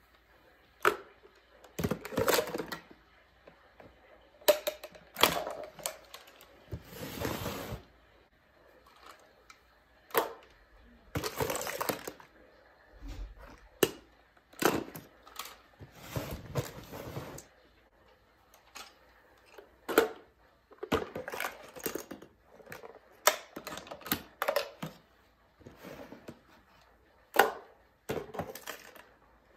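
Repeated plastic clicks, knocks and clatter of a handheld grabber tool gripping and handling mini toy trash bins. A few longer rattling spells come from small items tumbling into a plastic tub.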